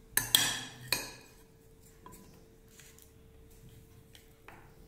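A metal spoon scooping food in a glass dish, with a few sharp clinks and scrapes against the glass in the first second, then only faint small knocks.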